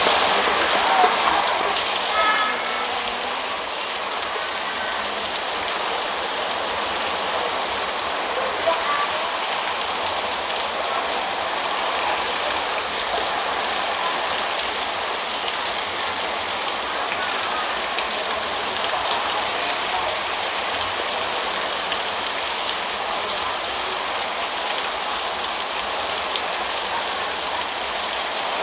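Heavy rain pouring steadily, a dense even hiss of drops.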